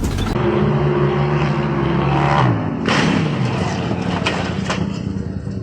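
An off-road 4x4 truck's engine revs, its pitch climbing a little and then falling away about two and a half seconds in. A sudden noisy burst follows near the three-second mark, then rougher engine and terrain noise.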